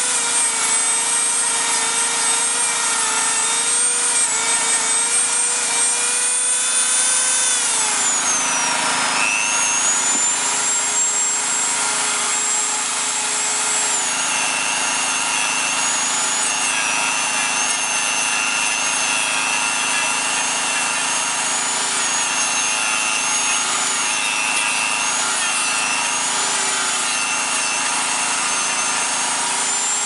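Dremel 3000 rotary tool running with a sanding band drum, sanding old glue and rubber off a car intake hose. The motor gives a steady high-pitched whine whose pitch dips about eight seconds in and then wavers as the band is worked against the hose.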